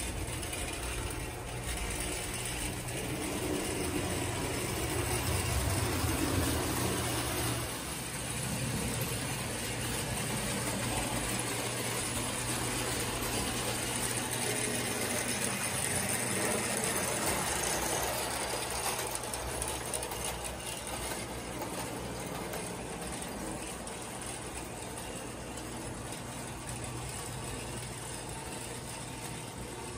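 1929 Lionel standard gauge coal train running: the locomotive's electric motor and gears whir and the wheels clatter on the tinplate track in a steady mechanical rattle. It grows louder twice as the train passes close.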